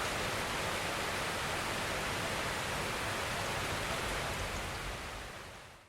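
A steady, even rushing noise that fades out over the last second or so.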